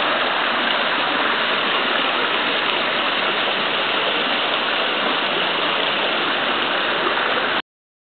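Steady rush of water falling and splashing into a pond, cutting off suddenly near the end.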